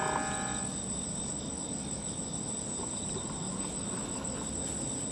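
Night insects calling in one steady, unbroken high-pitched tone over a low background hiss. A ringing tone dies away within the first second.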